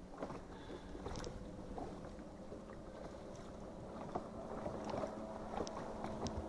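A boat motor running steadily with a low, even hum, and a few small knocks and clicks over it.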